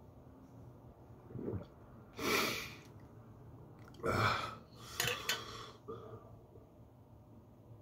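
A man's breathy exhales and gasps between swallows of tea from a glass jar, in several short bursts: the biggest about two seconds in, then around four and five seconds in.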